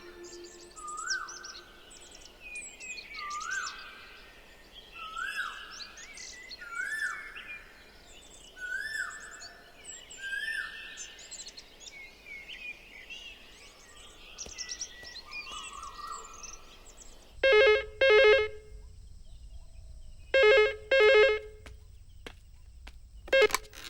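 Birds calling. One repeats a rising whistled note about every second and a half among other chirps. About 17 seconds in, a telephone rings in the double ring-ring pattern twice, with a short burst near the end.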